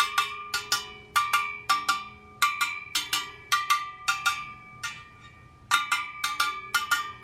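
Motorcycle wheel spokes on a Sur Ron Light Bee rear wheel laced to an Excel Takasago rim, plucked one after another. Each gives a short metallic ping, about three or four a second, with a short pause around five seconds in. The pitch of each ping is being used to judge spoke tension.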